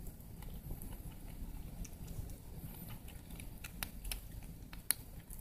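A cat eating: small irregular chewing and licking clicks, with a couple of sharper clicks near the end.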